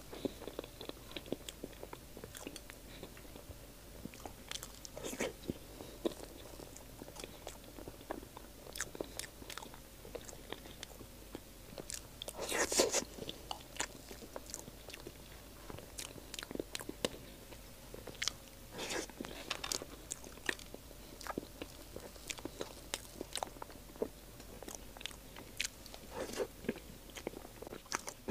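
Quiet close-up eating sounds: a soft soy-milk crepe cake being bitten and chewed, with scattered small clicks of a metal spoon against a plastic cake tray. There is one louder burst about halfway through.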